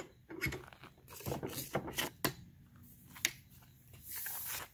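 Bench vise being loosened and a PVC pipe with a metal auger head taken out of its jaws: a run of small metal clicks and knocks with scraping, a sharp click a little after three seconds, and a short hissy scrape near the end.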